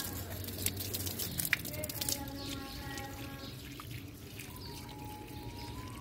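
Water from a garden hose pouring into a flowerpot, splashing and dripping onto wet soil and pooled water, with a few sharp drip splashes.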